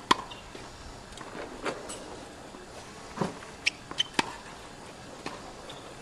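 Tennis balls struck by a racket and bouncing on a hard court: a series of short, sharp pops a second or so apart, the loudest right at the start.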